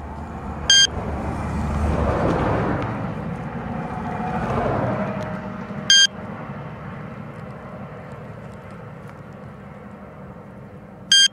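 A handheld radiation detector beeps three times, short high electronic beeps about five seconds apart. A passing car swells and fades over the first few seconds.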